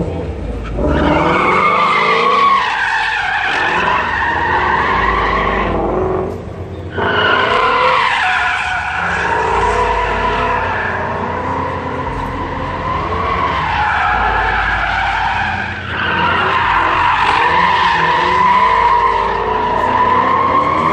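Ford Mustang drift car sliding: the engine revs hard, its pitch rising and falling, over the hiss and squeal of spinning tyres. There is a brief break about six seconds in.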